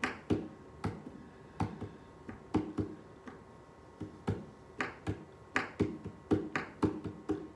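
A run of sharp clicks or taps, uneven at first and then coming about four a second, some with a short pitched ring after them.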